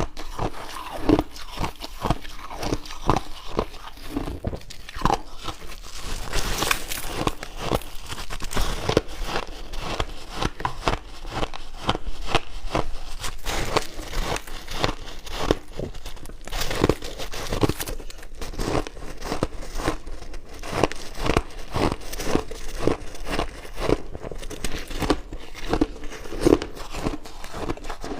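Chunks of white ice being bitten and chewed: a continuous run of sharp, crisp crunches, several a second.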